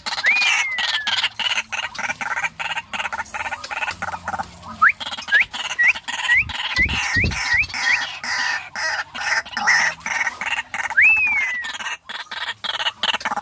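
Caged white-breasted waterhens calling together in a dense run of sharp clicking notes. Over them a clear whistle slides down near the start and again near the end, with a quick series of short rising whistles in the middle.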